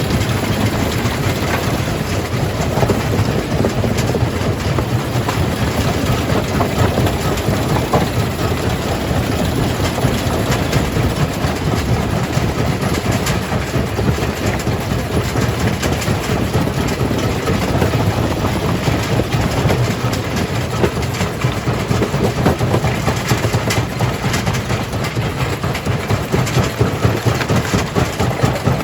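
Rock jaw crusher running and crushing stone: a steady low machine rumble with a constant rattle and clatter of rock being broken.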